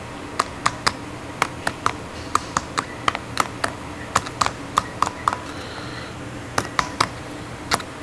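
Irregular sharp metal clicks and taps, about two or three a second: a flat-blade screwdriver working against the steel keeper and retaining ring of a Mercury gear and dog clutch assembly to release the keeper.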